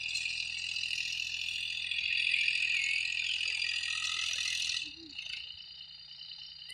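Distant John Deere 3036 EN tractor running steadily as a faint low hum while it pulls a cultivator. Over it is a louder, steady, high-pitched shrill sound that cuts off suddenly about five seconds in.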